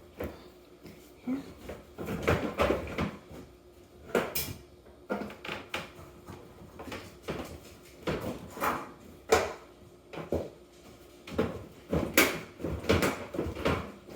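Irregular knocks, scrapes and clunks of hand demolition work as a baseboard and fittings are pried and pulled loose, some hits a second apart, with short pauses between.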